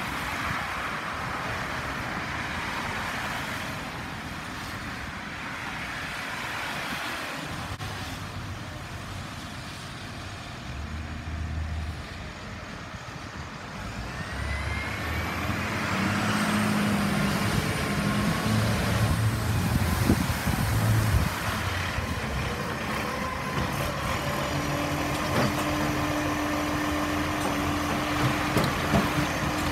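Tyre noise from cars passing on a wet road, then a Dennis side-loading garbage truck's diesel engine approaching with rising pitch and running close by. Near the end a steady whine sets in as the truck's arm lifts a wheelie bin.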